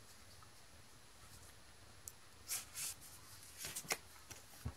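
Pokémon trading cards being handled: soft paper-like rustles and slides as cards are drawn off a stack, starting about halfway through, with a light tap near the end.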